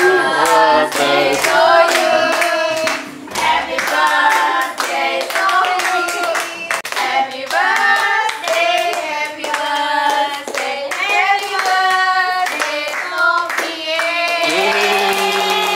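A group of women singing a birthday song together while clapping their hands along.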